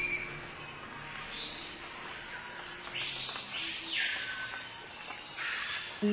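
Faint nature soundscape of bird chirps and insect-like sounds, with a few brief rising-and-falling swishes in the middle; sustained music chords come in at the very end.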